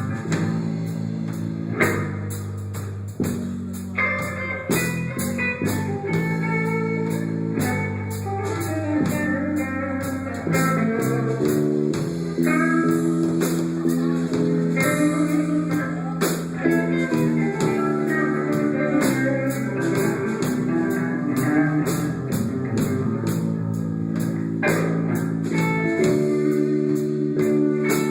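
Instrumental music: guitar playing over bass and a drum kit, with no singing.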